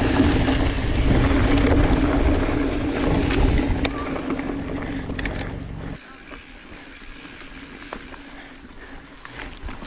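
Mountain bike rolling fast over a dirt singletrack, with tyre rumble and wind buffeting the handlebar camera's microphone under a steady low hum. The noise drops sharply about six seconds in and carries on much quieter.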